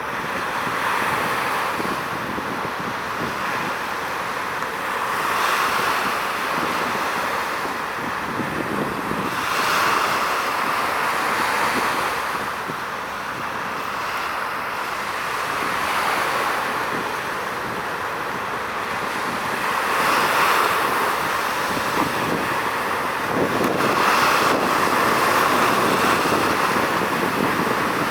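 Waves washing against the shore, the rush swelling and falling back every four to six seconds, with wind over it.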